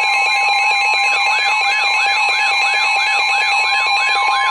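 Emergency alert tones from a weather-radio warning broadcast: a loud steady two-tone alert tone with a rising-and-falling whoop repeating about three times a second over it, and a higher pulsing beep that stops about a second in.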